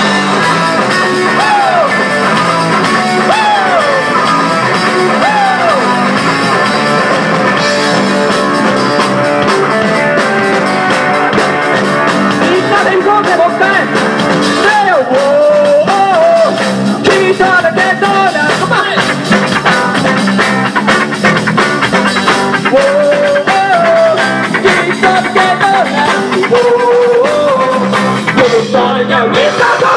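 Rock band playing live: a male singer sings over electric guitar, bass guitar and drums.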